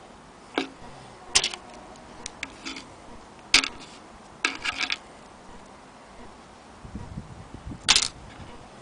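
Sharp clicks and taps from handling a wooden sewing machine case as string is tied around its brass swing handle, the metal handle knocking against its mounts and the wooden lid. The clicks are scattered, with a quick cluster about halfway and a loud one near the end.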